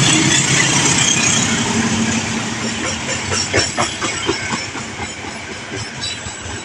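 A train passing on the rails, its wheels clicking over rail joints. The running sound gradually fades as it moves away.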